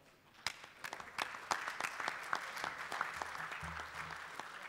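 Conference audience applauding, many hands clapping. The clapping starts about half a second in and thins out near the end.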